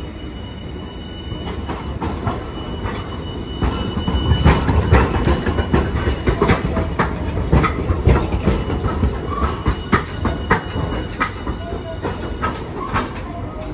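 Hiroshima Electric Railway low-floor tram, a Green Mover LEX (car 1005), rolling past close by on the station tracks. Its wheels clack over the rail joints and points about twice a second, loudest from about four seconds in.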